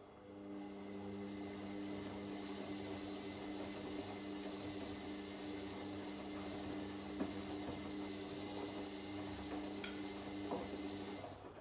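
Washing machine drum turning: the motor starts, runs with a steady hum and the swish of tumbling laundry for about eleven seconds, with a few sharp clicks, then stops. This is one tumbling phase of a wash cycle.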